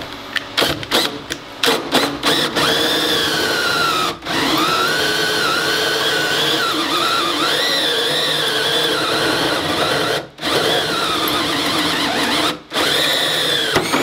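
Cordless drill driving an old, worn 22 mm hole saw into a metal control panel. It starts with short trigger bursts, then cuts steadily with a wavering high squeal, stopping briefly three times.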